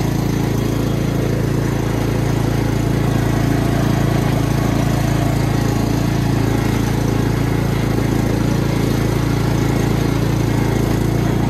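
Cub Cadet XT1 42-inch lawn tractor's engine running steadily at full throttle with the mower blades engaged as the tractor drives across the lawn.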